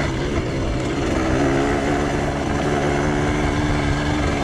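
Yamaha DT 125X's two-stroke single-cylinder engine running at a steady, nearly constant pitch under the rider on a dirt track.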